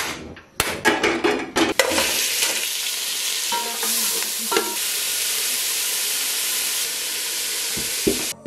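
Pieces of beef sizzling hard in a hot aluminium pot on a gas burner, stirred with a metal spoon, with a few clatters in the first two seconds before the steady sizzle sets in. The sizzle stops near the end, where a couple of dull thumps come from garlic being pounded in a wooden mortar.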